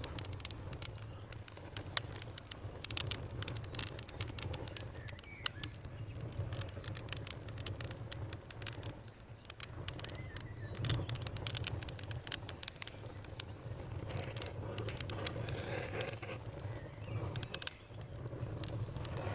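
Campfire burning, crackling with frequent irregular sharp pops over a steady low rumble of the flames.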